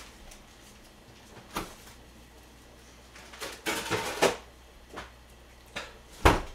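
Scattered knocks and clatters of kitchen things being handled: a single knock, a quick cluster a couple of seconds later, two small taps, and one sharp thump near the end, the loudest of them.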